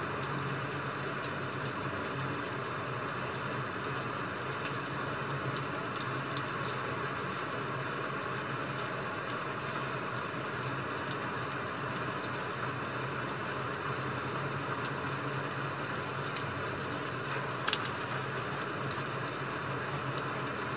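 Rain and wood-fire crackling ambience: a steady hiss of rain with sharp crackles scattered through it, and a couple of louder clicks about three seconds before the end.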